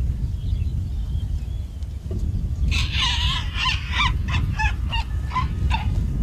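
Steady low rumble of an outdoor recording. From about two and a half seconds in comes a run of short, repeated high-pitched animal calls, a few a second.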